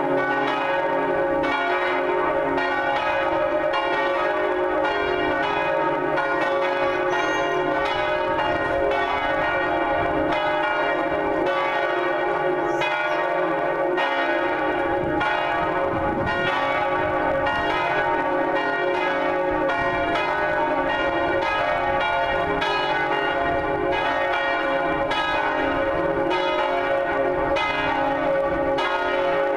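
Three church bells, cast by Cornille-Havard in 1905 and 1954, swinging in full peal together. Their strikes overlap in a continuous, irregular clangour, each stroke ringing on into the next, at a steady loudness.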